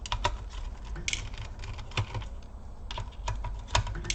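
Small screwdriver ticking and clicking as screws are backed out of a Lenovo T430 laptop's metal chassis, with light handling knocks; irregular small clicks, a few sharper than the rest.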